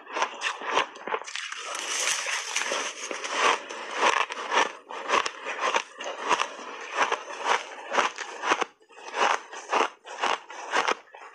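Refrozen blended shaved ice crunching as it is chewed in big mouthfuls: a quick, uneven run of sharp crunches, about two a second, with a spoon scraping through the ice between bites.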